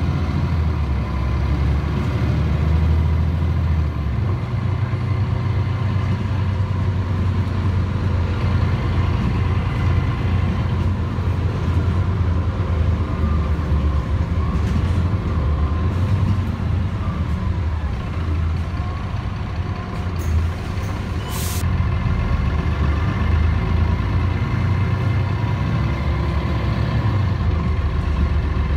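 Mercedes-Benz Citaro city bus with a Voith automatic gearbox, heard from inside the passenger cabin while driving: steady diesel engine rumble with the gearbox loud over it. A short hiss of air about two-thirds of the way through.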